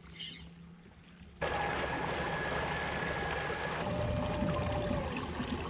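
Fishing kayak under way: water rushing along the hull, starting suddenly about a second and a half in, with a steady high whine over it.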